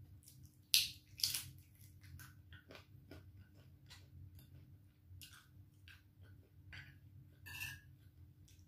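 Close-up eating sounds: chewing of crisp fried dried anchovies (dilis) and rice, with many short crackles and clicks. The two loudest crunches come about a second in, and another comes near the end.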